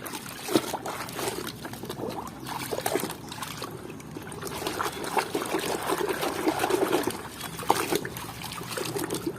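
Water trickling and splashing, with irregular small clicks and taps, as a muddy plastic toy is washed by hand.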